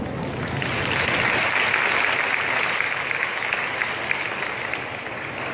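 Audience applauding, swelling about a second in and gradually dying away near the end.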